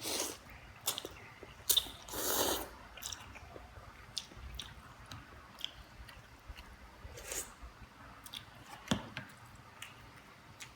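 Someone chewing a mouthful of Indomie noodle soup and rice, with scattered wet mouth clicks and smacks and two longer, louder breathy sounds, one at the start and one about two seconds in.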